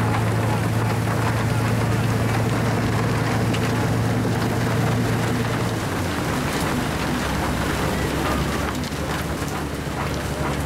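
Railway rotary snowplow working through deep snow: a steady engine hum under the hiss of snow being thrown. About six seconds in, the hum changes to a lower note.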